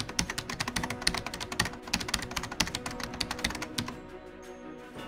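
Computer-keyboard typing sound effect, rapid clicking keystrokes over background music; the typing stops about four seconds in, leaving the music alone.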